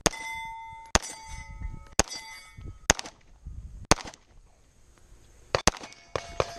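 Pistol shots on steel targets, each one followed by the ring of the struck steel plate: five shots about a second apart, then a quicker cluster of shots and rings near the end.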